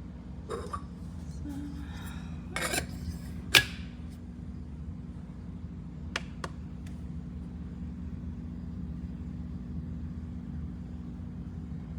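A steady low hum with several sharp clinks and clacks like dishes or utensils being handled, the loudest about three and a half seconds in.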